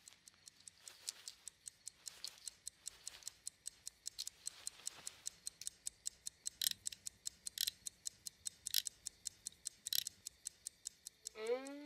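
Pocket watch ticking steadily, about four ticks a second, with soft cloth rustling over the first few seconds and a few louder clicks in the second half.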